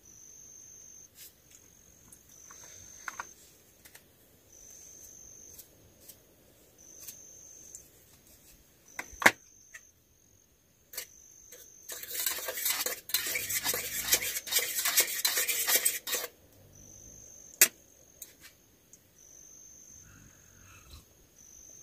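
Fork and steel cookware clinking and scraping while eating, with a few sharp clinks and a louder four-second noisy stretch about twelve seconds in. Crickets trill in short high bouts of about a second throughout.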